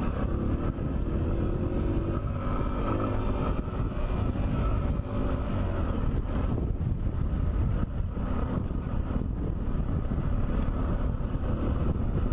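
Macbor Montana XR1's 125cc single-cylinder four-stroke engine running steadily under way off-road, with ride rumble; the revs climb briefly about two seconds in.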